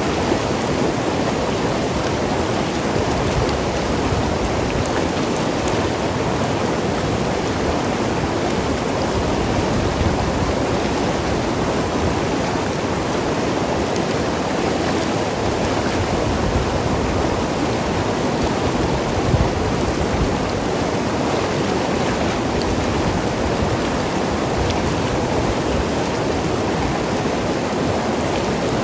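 Mountain river flowing and tumbling over rocks: a steady, full rushing and gurgling of water.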